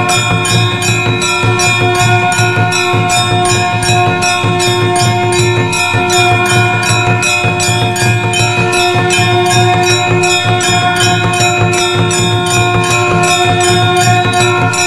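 Temple bells struck rapidly and without pause, about four strikes a second. Their ringing overlaps into a continuous, steady chime.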